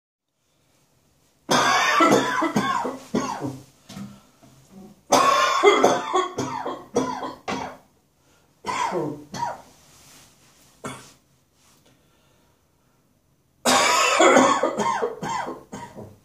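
A person coughing harshly in four fits of rapid hacking coughs with throat-clearing, a cold-season chesty cough. The first fit comes about a second and a half in and the last near the end, with short quiet gaps between.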